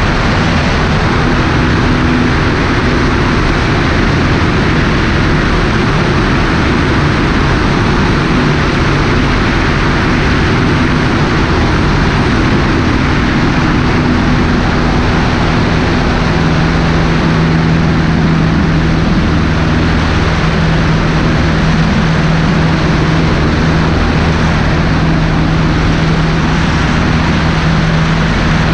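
Cessna 150's Continental O-200 four-cylinder engine and propeller droning steadily in flight, under a loud rush of wind across a wing-mounted action camera. The engine's low tone grows a little stronger about halfway through.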